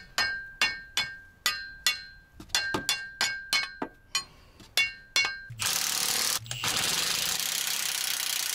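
Sharp metal-on-metal strikes, two to three a second, each ringing briefly, from tool work on the truck's seized axle-housing bolts. About five and a half seconds in they stop and a steady hiss takes over.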